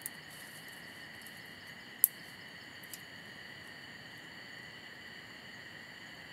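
Steady chorus of night insects, crickets, trilling. Over it come a few sharp clicks, the loudest about two seconds in.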